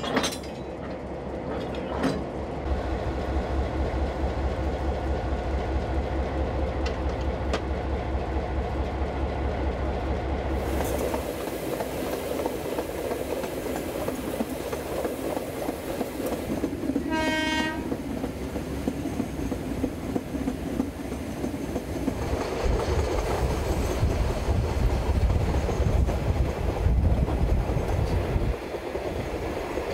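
Locomotives: a diesel engine idling with a steady low hum and a couple of sharp clanks, then the train under way with wheels running over rail joints and a low rumble. About halfway through a train horn sounds once for about a second.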